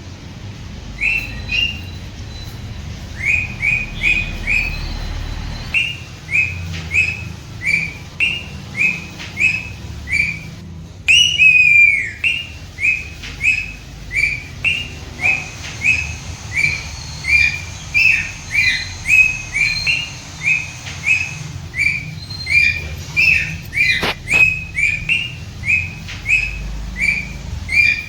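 Pet parrot chirping over and over in short, even calls, about two a second, with one louder, longer call that sweeps down in pitch about halfway through.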